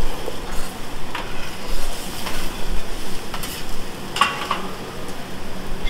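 Fried rice and vegetables sizzling on a hibachi steel griddle while the chef's metal spatulas scrape and clack against the hot surface, a few sharp clinks standing out, the loudest about four seconds in.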